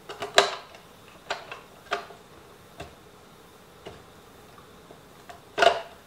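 Hard plastic clicking and clatter as the lid of an RC truck's hinged watertight battery compartment is handled and lifted off: a handful of separate sharp clicks, then a louder rattle of clicks near the end.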